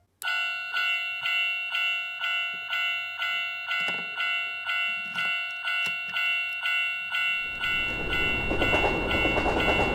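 Railroad crossing warning bell, the electronic ding-ding of a 1/24 toy crossing gate, struck about twice a second. About three quarters of the way in, a rushing train-passing noise joins it and grows louder than the bell.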